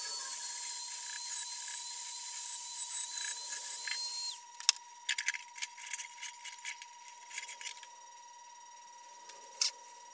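Corded Dremel rotary tool with a carbide burr grinding at a brazed crack in a cast-iron lathe tailstock: a high steady whine with gritty grinding noise, switched off about four seconds in. After that come a few scrapes and clicks of a hand tool against the metal, chipping off the glass-hard brazing flux.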